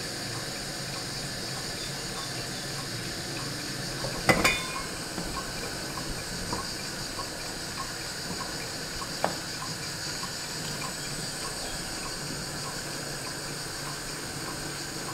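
Large pot of water at a rolling boil on a gas hob, with a steady hiss from the boil and the burner flame. A loud metallic clank with a short ring comes about four seconds in, and a smaller sharp knock a little after nine seconds, as the lid is handled and a wooden spoon stirs the pasta. Faint regular ticking, about twice a second, runs underneath.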